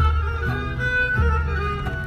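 Background music: sustained melody notes over a low bass line that changes note about every second and a half.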